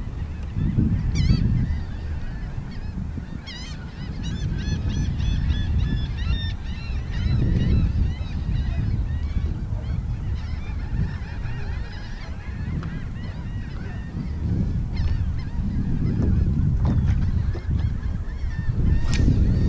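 Birds calling, many short chirping calls one after another, thickest a few seconds in and scattered later, over a loud, uneven low rumble.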